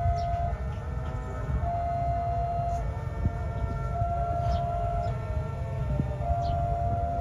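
Level-crossing warning alarm sounding as a train approaches: one steady electronic tone on for about a second, off for about a second, over and over. A low wind rumble on the microphone runs underneath.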